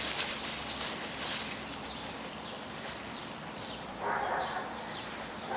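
Dog paws rustling and crunching through dry fallen leaves and grass, with a few short bird chirps in the background and a brief rushing noise about four seconds in.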